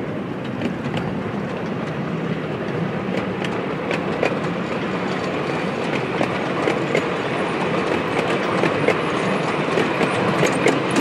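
Passenger coaches of a 7¼-inch gauge miniature railway rolling past close by: a steady rumble of wheels on rail with many sharp clicks as they cross the rail joints, growing a little louder near the end.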